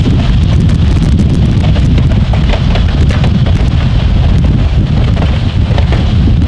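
Heavy wind buffeting on the microphone and road rumble from a car driving alongside a passing train, a steady low roar with faint clicks through it.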